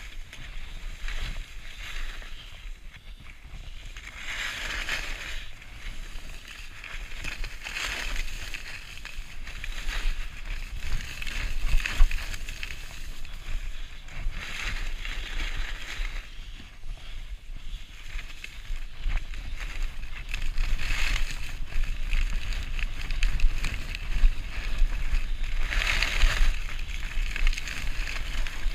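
Skis hissing and scraping over packed snow, with a louder scrape every few seconds as the skier turns, over a steady low rumble of wind buffeting the chest-mounted action camera.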